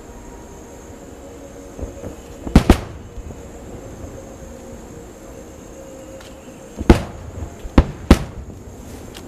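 Fireworks shells bursting: a pair of sharp bangs in quick succession, then about four seconds later three more.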